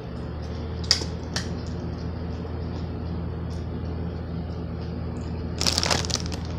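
A steady low hum runs throughout. Two sharp metallic clinks, like a fork against a metal pot, come about a second in, and a short rustle of handling comes near the end.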